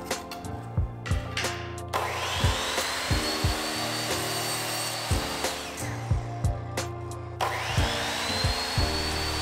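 Ryobi sliding miter saw cutting tongue-and-groove wood beadboard panels twice: each time the motor spins up with a rising whine to a steady high pitch and runs through the cut, the first about two seconds in, the second about seven and a half seconds in. Background music with a steady beat plays underneath.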